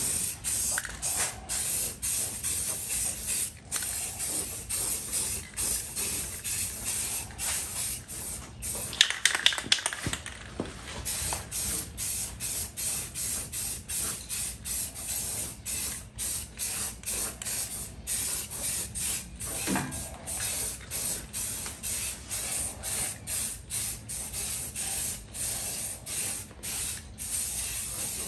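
Aerosol spray cans of primer hissing in short, repeated bursts with brief breaks between passes. A few louder sounds come around nine seconds in.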